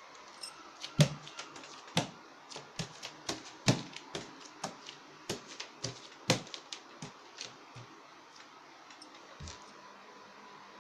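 Irregular sharp taps and clicks from a Lhasa Apso puppy playing on a hard marble floor, several a second, thinning out after about eight seconds.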